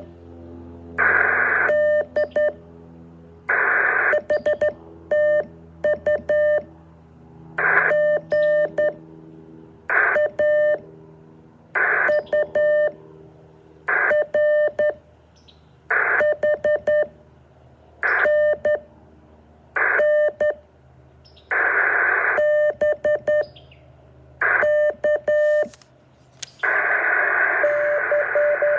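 Morse code heard over a radio receiver: a single steady beep keyed on and off in short and long pulses, in groups that repeat about every two seconds. Each group is led by a short burst of hiss, and near the end the hiss runs on continuously under the beeps.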